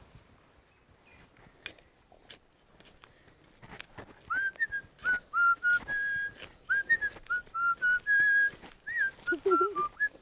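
A few faint clicks, then from about four seconds in a person whistling a tune in short notes that step and slide in pitch.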